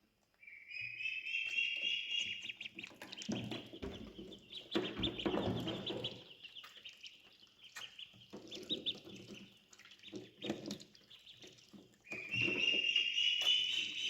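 A group of ducklings peeping together in a high, continuous chorus near the start and again near the end. In between come irregular splashy, slurping bursts of their bills dabbling and drinking in water.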